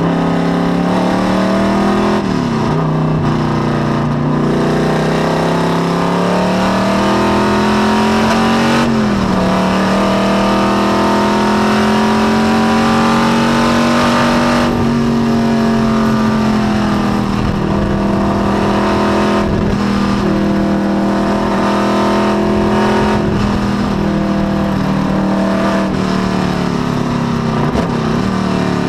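Small-block Chevy V8 of a 1972 Corvette C3 race car at racing speed, heard from inside the cockpit. The engine note climbs under full throttle and drops at each gear change, most sharply about nine seconds in, then holds high and steady with brief dips.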